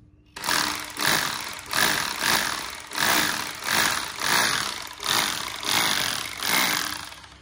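Hitachi rotary hammer drill switched on and running free in the hand, its noise swelling and falling about every two-thirds of a second; it starts suddenly about a third of a second in and stops just before the end.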